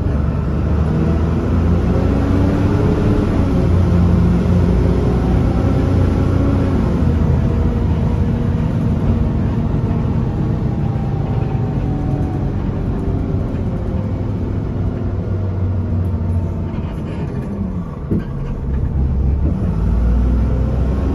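Alexander Dennis Enviro300 bus's diesel engine heard from the rear of the passenger cabin, running with its pitch rising and falling several times. Near the end it drops briefly with a single knock, then rises again.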